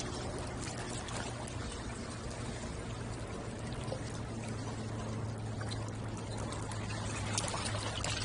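Water lapping and splashing at a shoreline, with many small irregular splashes over a steady low hum.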